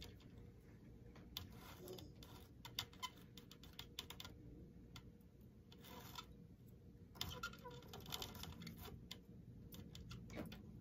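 Faint, irregular light clicks and soft rustles of a beveled glass heart and copper foil tape being handled as the foil is wrapped around the glass edge by hand.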